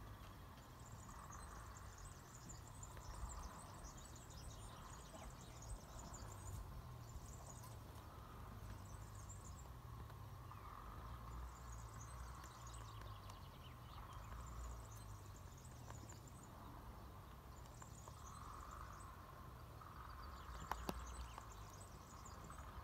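Rabbits eating seeds from a metal feeder: faint bursts of quick, crisp crunching that come and go every few seconds over a low outdoor rumble, with one sharp click near the end.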